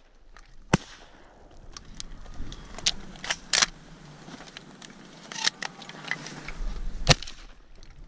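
Shotgun shots fired from a duck blind at ducks over the decoys: several sharp reports a second or two apart, the loudest about a second in and near the end, with faint rustle and gear rattle between them.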